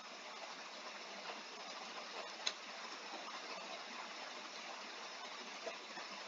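Steady hiss of recording background noise, with one sharp click about two and a half seconds in and a fainter one near the end.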